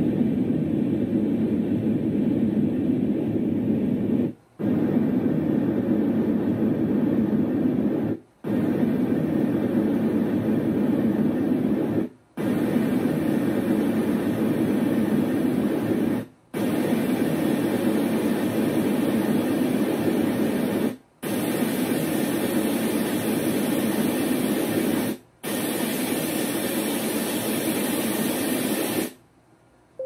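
A Renpho white noise sleep machine steps through its built-in white noise and fan sounds. It plays seven steady noise sounds in turn, about four seconds each, with a short silent break as each new sound is selected. The later sounds are brighter and more hissy than the first.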